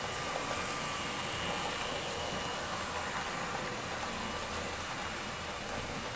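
HO-scale model trains running on the layout track: a steady whirring of wheels on rails and small electric motors, with a faint high whine.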